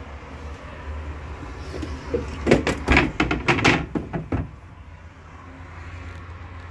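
Solid-surface cooktop cover being handled and set down over a gas cooktop's metal burner grates: a quick cluster of clunks and clatters, starting about two seconds in and lasting about two seconds.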